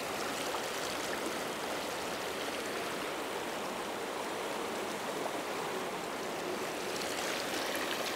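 River rapids rushing steadily, water running fast over and around boulders in a shallow riffle.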